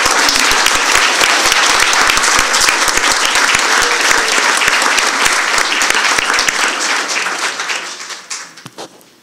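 Audience applauding, a dense steady clapping that tails off over the last couple of seconds.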